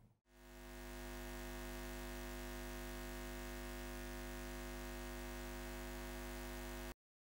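Steady electric hum with many fixed overtones, fading in over the first second, holding unchanged, then cutting off abruptly near the end.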